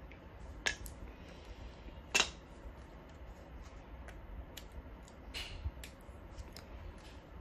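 Small metal and plastic monitor-stand parts being handled by hand: scattered light clicks and taps, with two sharper knocks about a second and two seconds in and a brief rustle a little after five seconds.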